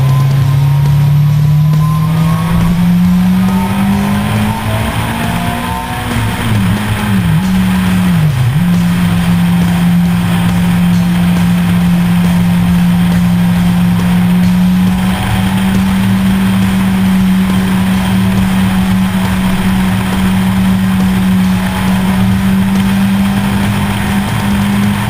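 Motorcycle engine heard while riding, with wind rush over the microphone. The engine note climbs slowly at first, drops and recovers quickly two or three times about a quarter of the way in, as at gear changes, then holds steady at cruising speed.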